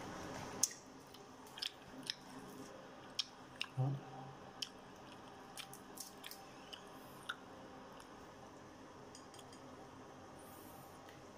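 Crispy fried chicken skin crunching: scattered sharp crackles and clicks as pieces are picked apart and eaten, spread over the first seven seconds or so.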